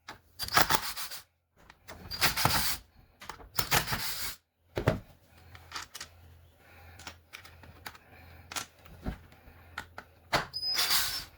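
Screws being taken out of a plastic carpet cleaner housing: a few short bursts of scraping and rattling, with scattered sharp clicks in between.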